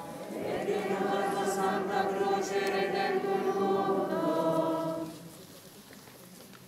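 A crowd singing a hymn together in long held notes; the singing stops about five seconds in.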